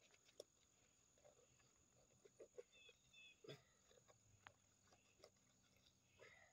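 Near silence: a faint steady high-pitched hum, with scattered soft clicks and scrapes from hands digging out wet soil.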